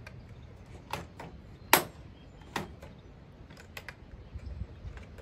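Handling noises from a new Red Max GZ360 35cc rear-handle chainsaw on a metal work table: about half a dozen sharp clicks and knocks, the loudest a little under two seconds in.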